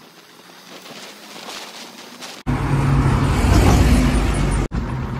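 Faint wind and road noise from a moving motorcycle, then, after a sudden cut about two and a half seconds in, the motorcycle's engine idling loudly close to the microphone with a steady low rumble; near the end another cut drops it to a quieter idle.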